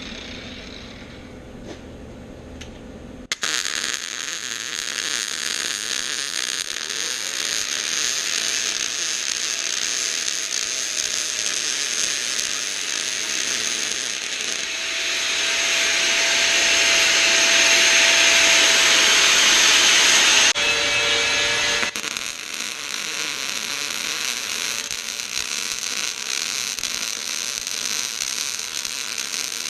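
Welding arc crackling and hissing as a bead is laid along a joint. It strikes suddenly about three seconds in, grows louder, breaks off about two-thirds of the way through, and is followed by a quieter steady hiss.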